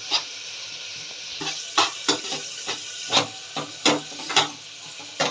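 Metal spoon stirring shredded chicken filling in a nonstick frying pan, with irregular scrapes and knocks against the pan over a steady sizzle.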